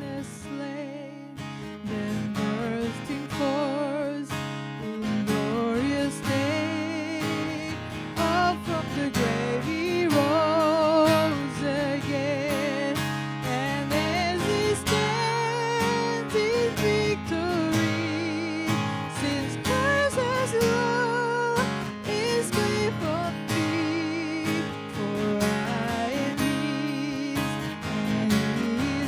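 A woman singing a worship hymn to her own strummed acoustic guitar, her voice carrying a wavering vibrato over steady chords.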